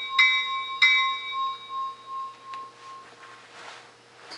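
Simulated locomotive bell from a Soundtraxx Tsunami SoundCar sound decoder, played through a model car's small speaker. It strikes twice in the first second, then stops ringing and the tone fades away over about two seconds.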